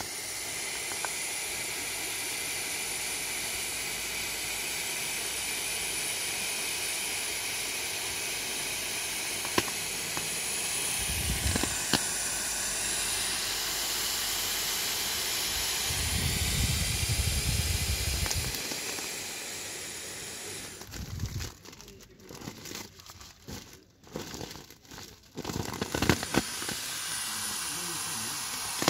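Air hissing steadily out of the valve of an inflatable plastic beach ball as it is squeezed flat, with crinkling of the plastic. About two-thirds of the way through, the hiss breaks into short, uneven spurts, then runs steady again near the end.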